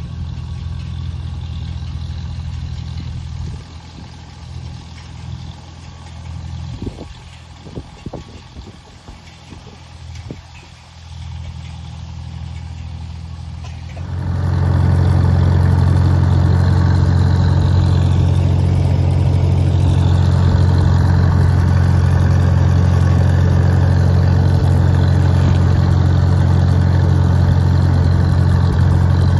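1950 Farmall M tractor's four-cylinder engine running at a steady speed. It is heard from a distance at first and grows fainter and uneven for several seconds. About halfway through it turns abruptly much louder and closer, as heard from the driver's seat.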